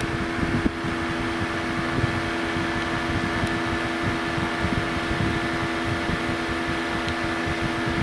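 Small electric fan in a cylinder-cooling test jig running steadily: a constant hum with an even rush of air.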